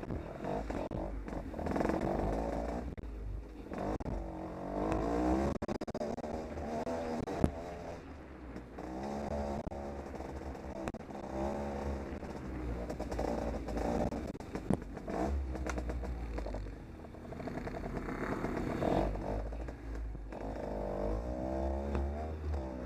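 Off-road motorcycle engine running, its pitch rising and falling again and again as the throttle is worked, over a steady low rumble.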